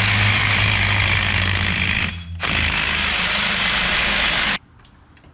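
Impact wrench running in two bursts of about two seconds each, with a brief pause between; it cuts off suddenly near the end.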